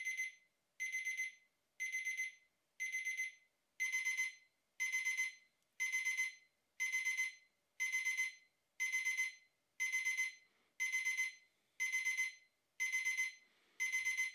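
Braun BC21 digital alarm clock's electronic alarm sounding: clusters of rapid high-pitched beeps repeating about once a second. About four seconds in it steps up in loudness as the crescendo alarm reaches its maximum ringing level.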